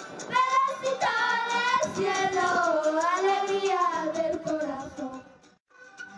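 Two young girls singing together through microphones, holding long notes that waver in pitch. About five and a half seconds in the singing stops for a moment, and instruments come back in near the end.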